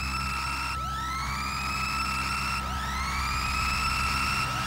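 Intro of a rock song: an electronic, siren-like tone swoops up in pitch and levels off, repeating about every two seconds over a low sustained drone, slowly building in loudness.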